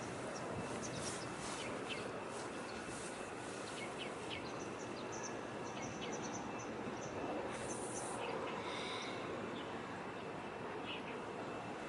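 Small birds chirping on and off, short high chirps thickest in the first half, over a steady background hiss and rumble.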